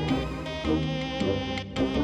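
Background music: an upbeat instrumental tune with a regular beat.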